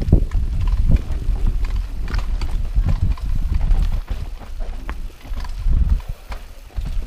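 Downhill mountain bike rattling and knocking as it rolls fast over a bumpy dirt singletrack, with a dense low rumble of tyres and riding under many irregular sharp knocks.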